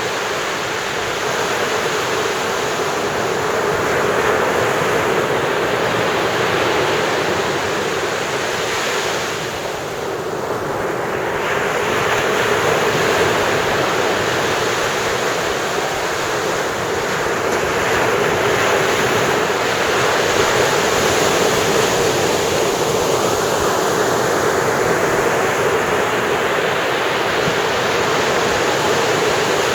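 Ocean surf breaking and washing up the beach: a continuous rush of waves that swells and ebbs, easing briefly about a third of the way through before building again.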